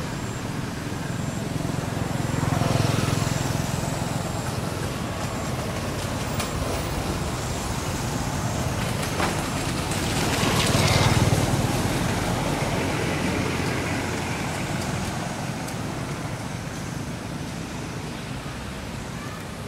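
Passing road traffic over a steady background rumble: one vehicle swells past about three seconds in, and a second, louder one about ten seconds in.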